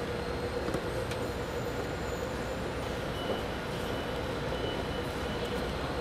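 Steady machinery din on a soap factory floor: a constant hum with a few faint clicks.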